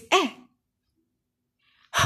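A woman's voice saying the short vowel sound "e", then silence.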